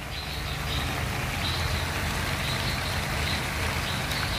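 A gas wok burner running with a steady low rumble, an even hiss above it.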